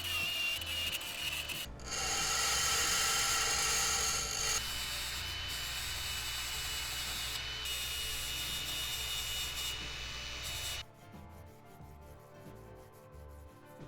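Hand sanding and filing of small workshop parts, a steady abrasive rubbing. It changes abruptly about 2 s and 4.5 s in, and turns quieter with fast, fine strokes near the end.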